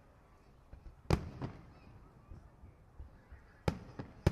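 Aerial firework shells bursting with sharp booms: two bangs close together about a second in, then two more near the end.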